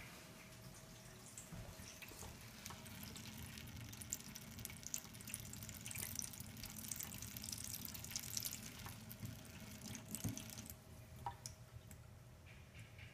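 Reverse osmosis drinking-water faucet running a thin, faint stream into a stainless steel sink, the flow stopping about three quarters of the way through.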